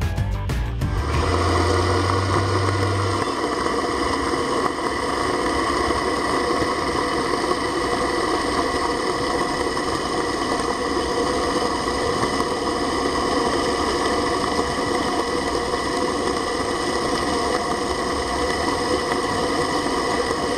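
Submerged hydraulic dredge pump running, a steady mechanical drone with a high whine through it, starting about a second in and holding even throughout.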